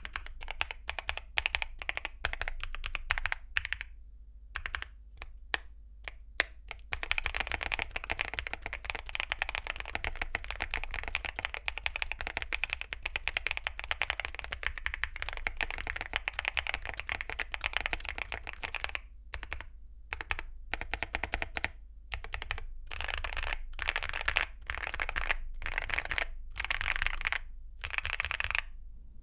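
Typing on a Weikav Lucky65 V2 mechanical keyboard with factory-lubed Vertex V1 linear switches and PBT keycaps. A few seconds of typing open the stretch, then a handful of separate keystrokes. Fast continuous typing follows for about twelve seconds, then a few single presses, and several short bursts of typing near the end.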